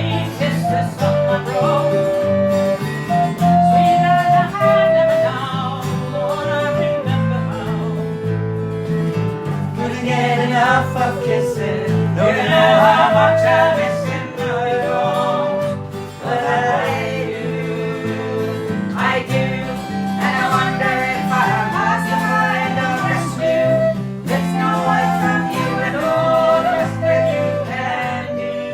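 Irish/Scottish folk music: acoustic guitar strumming with a melody of held notes carried on top, no words heard, fading out at the very end.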